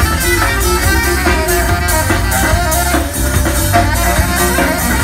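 Live band music played loud: drum kit, bass, electric guitar and saxophone together.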